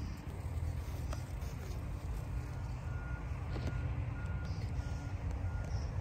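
A vehicle's reversing alarm beeping, an even row of short single-pitch beeps about one and a half a second, starting about two seconds in, over a steady low rumble.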